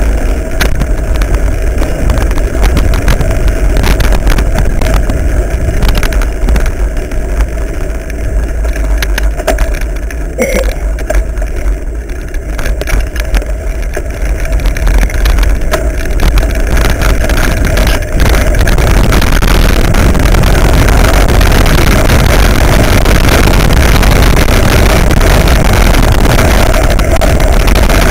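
Rumble and wind buffeting on a mountain bike camera's microphone as the bike rides a rough forest singletrack, with frequent knocks and rattles from the bumpy ground. About two-thirds of the way through it turns into a steadier, louder rush of tyres and wind on a gravel track.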